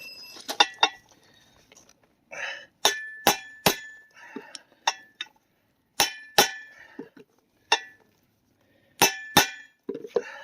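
Hammer striking a steel punch against the new U-joint in the driveshaft yoke: sharp metal-on-metal taps that ring, three quick strikes, then a pair, then another pair, with lighter taps between.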